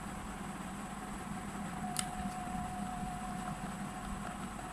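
Steady low room hum with a single light click about two seconds in, and a faint thin tone for a second or so after it, as a wood screw is set into chipboard by hand.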